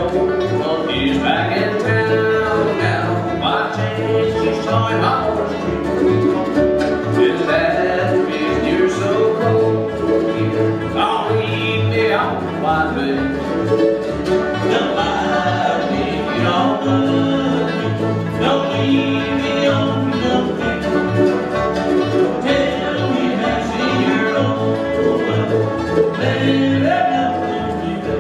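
Live acoustic bluegrass band playing: driving five-string banjo rolls and strummed acoustic guitars over a steady plucked upright bass beat, with mandolin.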